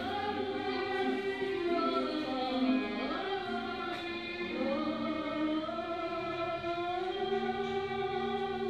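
Background music: a choir singing slow, sustained notes that shift gradually from one chord to the next.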